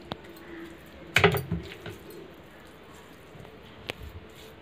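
Hands rubbing seasoning into raw chicken breast on a plate, with soft squishing. About a second in there is a brief clatter of several quick clicks, and a single sharp click comes near the end.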